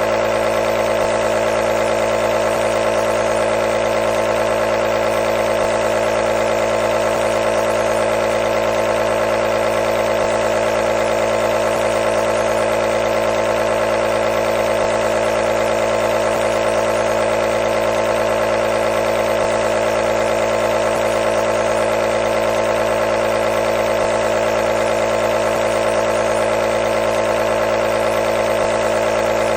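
Compressor nebulizer running steadily: a constant motor-and-pump buzz with a strong mid-pitched hum and airy hiss, unchanging throughout.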